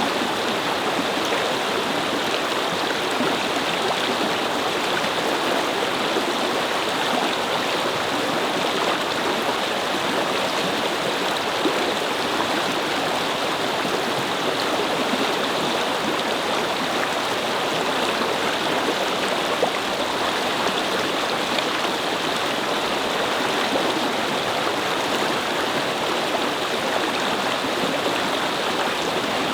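Small brook babbling and flowing over stones in a steady, even rush of water.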